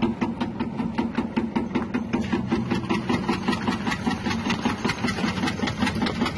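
Electric tuber chip slicer running, its 180-watt motor driving a spinning wavy blade that cuts crinkle slices. It makes a steady hum with rapid, regular ticking several times a second.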